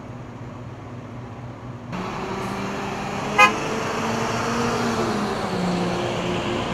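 Low engine hum at first. About two seconds in it gives way to the louder sound of garbage trucks driving past, their engines rising and falling as they go by. A single short horn toot sounds about three and a half seconds in.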